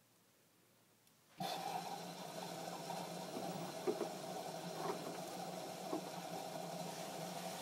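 Washing machine filling with water: a steady rush of water over a low hum, starting abruptly about a second and a half in, with a few light knocks about once a second.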